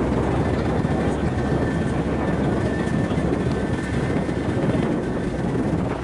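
Small motorboat's engine running steadily under way, a constant low drone mixed with the rush of the hull through the water.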